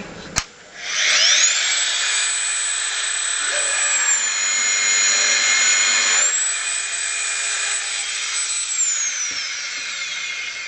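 Enamel wire stripper's high-speed motor switched on with a click, spinning up to a steady high whine. For about two seconds midway the pitch sags and a lower grinding joins in as the tool takes the load of the wire being stripped, then it picks back up and winds down near the end.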